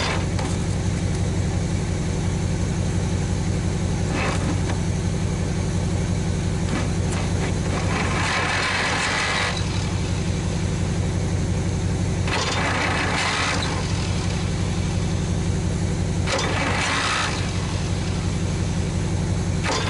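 An engine running at a steady idle, with three short bursts of hiss about four seconds apart.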